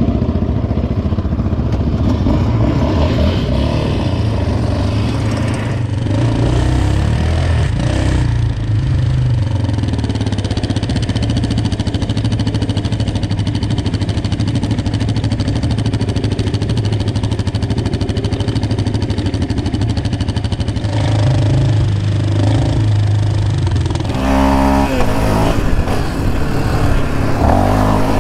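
Yamaha Raptor 700R ATV's single-cylinder engine, fitted with a Monster aftermarket exhaust, running steadily at low speed close to the microphone. It revs up with a rising pitch about four seconds before the end.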